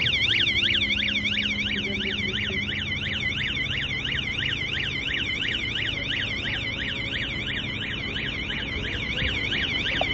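Hydraulic lift's warning alarm warbling, its pitch sweeping up and down about four times a second while the lift is raised in lifting mode, over a steady low hum from the machine.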